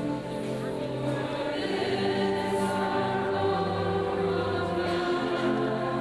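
A large group of students singing a school song together as a choir, holding long notes that change about once a second.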